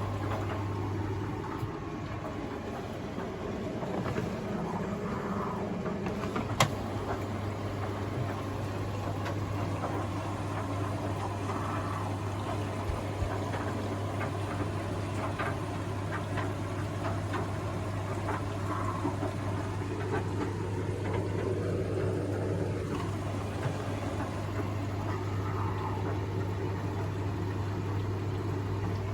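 Panasonic NA-147VB5 washing machine (Vestel-built) running through its cycle: a steady low hum with water and mechanical noise, small clicks, and one sharp click about six and a half seconds in.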